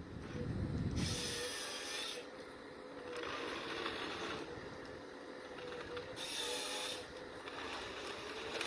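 Forestry machine working: a steady low engine hum with a faint wavering whine, broken by several rasping bursts about a second long.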